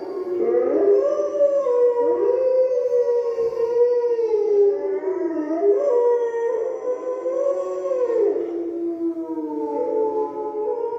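Recorded wolf pack howling in chorus. Several long howls overlap, each rising and falling in pitch.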